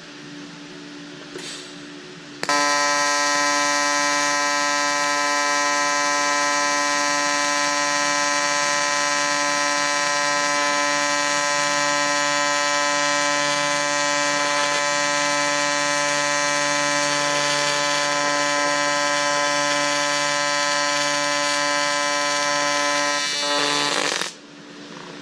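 A welding arc, most likely from a TIG welder, buzzing loudly and steadily for about twenty seconds; it strikes suddenly after a short tick and cuts off near the end. The welder thinks contamination is why the weld "doesn't really want to do anything".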